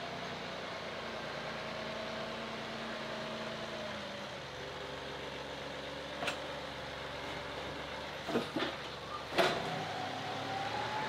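John Deere compact tractor's diesel engine running as the tractor pulls away from its detached backhoe, with a few sharp metal clunks in the second half, the loudest about nine and a half seconds in. The engine speed rises near the end.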